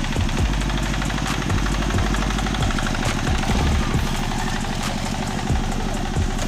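Engine of a two-wheel walk-behind hand tractor running steadily as it pulls through a flooded rice paddy.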